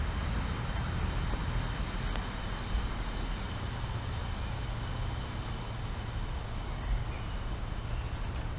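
Wind rumbling on a camera microphone fitted with a wind reduction cover: a steady low rumble with a fainter rushing hiss above it.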